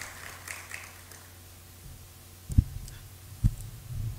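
A public-address microphone being handled at a table: two dull thumps about a second apart, a little past halfway, over the steady low hum of the hall's sound system.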